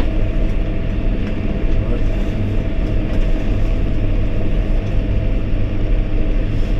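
John Deere 6110R tractor running steadily under load, driving a PTO snow blower that is chewing through frozen snow, heard from inside the cab. The blower is moaning a little in the frozen snow.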